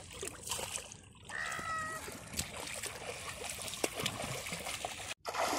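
River water splashing and sloshing as a wading adult swings a small child round through it.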